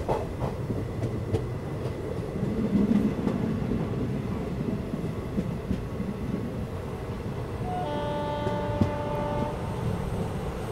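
Express passenger train running, heard from on board as a steady rumble. About eight seconds in, a locomotive horn sounds once, a steady blast of a little under two seconds.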